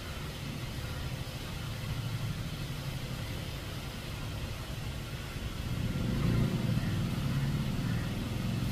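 A motor vehicle engine running, a steady low hum that swells louder from about six seconds in.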